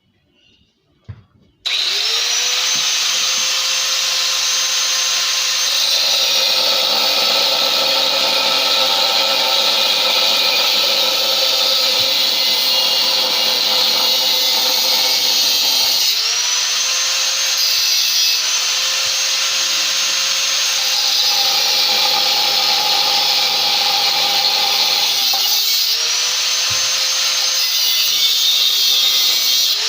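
Electric cut-off tool with a thin abrasive disc spinning up about two seconds in, then cutting narrow relief slots across a metal tube. Its high whine drops in pitch each time the disc bites into the tube under load, and it recovers between cuts, about three times.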